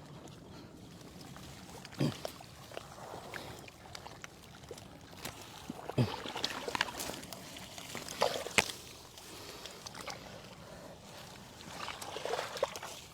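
Hands and legs moving through shallow muddy water: small sloshes and trickles, broken by a few brief, sharper splashes spread through.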